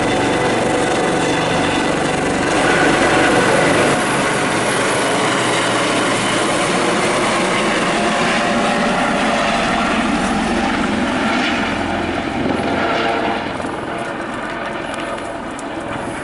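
Rescue helicopter hovering: a loud, steady noise of rotor and engine that grows quieter near the end.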